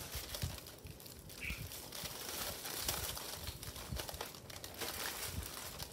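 Aluminium foil crinkling and crackling as it is folded and pressed around a long sandwich by gloved hands, with a few soft thumps.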